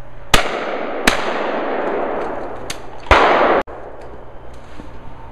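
Shotgun shots at clay targets, each echoing off through the trees: two about three-quarters of a second apart near the start, then another loud one about three seconds in that cuts off abruptly.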